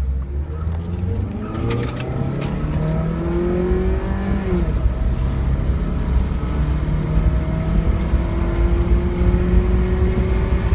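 1994 Honda Prelude's 2.2-litre non-VTEC four-cylinder engine at full throttle from a standstill in a 0-60 mph run, heard from inside the cabin. The revs climb steadily, the automatic gearbox upshifts once about four and a half seconds in with a drop in pitch, and the revs then climb again more slowly.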